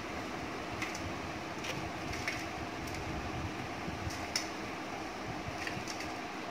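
Steady hum of a room fan, with a few light clicks and taps from hands and utensils handling the cake board and decorations.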